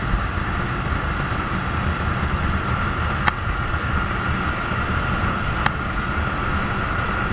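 Steady wind rush over the microphone and running noise from a moving vehicle during a ride, with two short sharp clicks, a little past a third of the way in and again about three quarters through.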